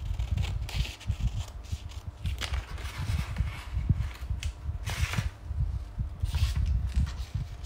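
Craft scissors snipping through a sheet of paper, with the paper rustling in several short bursts as it is cut and turned. Dull low knocks from handling run underneath.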